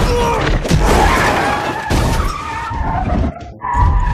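Car-chase sound effects from an action film: tyres squealing and skidding over running car engines, with a few sharp hits. The sound drops out briefly about three and a half seconds in.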